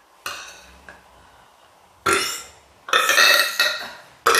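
A woman burping: a short burp about two seconds in, then a longer, louder burp lasting about a second, and another beginning right at the end.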